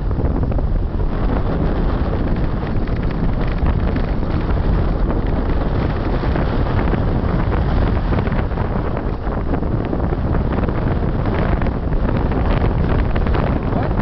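Strong wind buffeting the microphone of a camera on a moving kite buggy: a loud, steady rumble with constant crackling.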